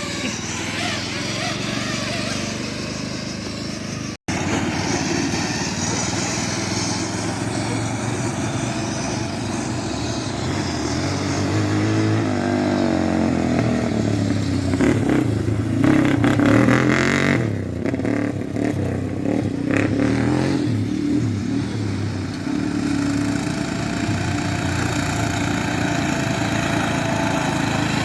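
Small single-cylinder engine of a riding lawnmower running hard around a track, its pitch rising and falling as the throttle changes, with a brief dropout about four seconds in.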